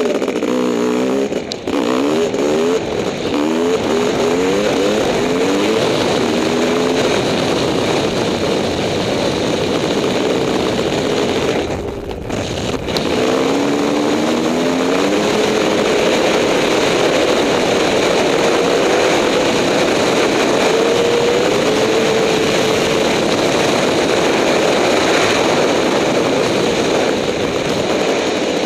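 Honda CR500 two-stroke single-cylinder dirt bike engine accelerating hard through the gears, the pitch climbing again and again with each shift, then dipping briefly about twelve seconds in before climbing once more and holding steady at high speed for the rest of the run.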